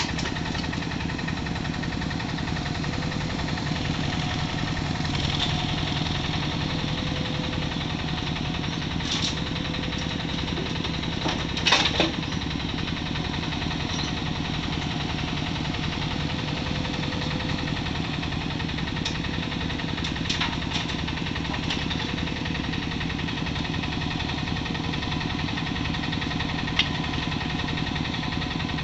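Yanmar SV08 mini excavator's diesel engine running steadily under hydraulic load while it digs, with a few sharp metallic clanks from the bucket, the loudest about twelve seconds in.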